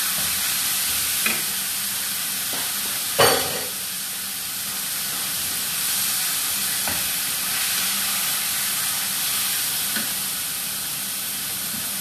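Strips of chicken breast frying in olive oil in a frying pan: a steady sizzle, stirred with a spatula that clacks and scrapes against the pan a few times, loudest about three seconds in.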